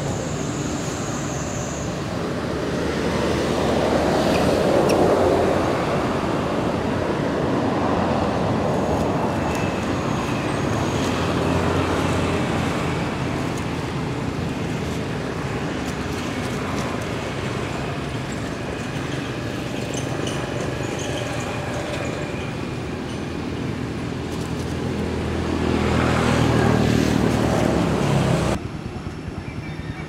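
Steady outdoor background noise like distant road traffic, swelling twice as if vehicles pass, then dropping off suddenly near the end.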